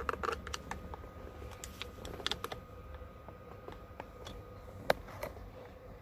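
Light clicks and scrapes of a thin metal Allen key probing the airbag release hole in a steering wheel's plastic back cover, with one sharp click about five seconds in.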